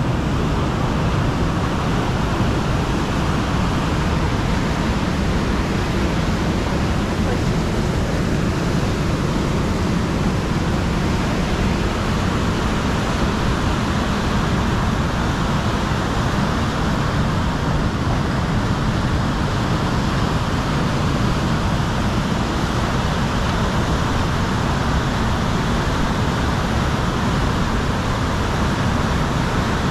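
Fast mountain river rushing over rapids close by: a steady, unbroken wash of white-water noise.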